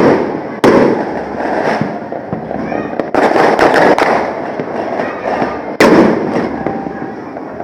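New Year fireworks exploding: four loud bangs, each trailing off in a long rumbling decay, with smaller crackles between them.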